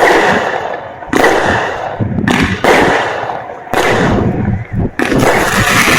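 Fireworks shells bursting close by: a sharp bang about every second, each trailing off in a rumble. From about five seconds in, the bursts run together into a continuous dense barrage.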